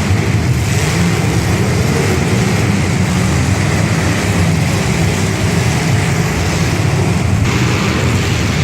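Demolition derby car engines running loud, a steady low rumble with no distinct crashes.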